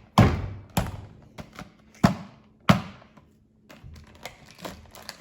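Sharp knocks and clicks of hard plastic toy packaging being handled and set down: four distinct knocks in the first three seconds, then lighter taps.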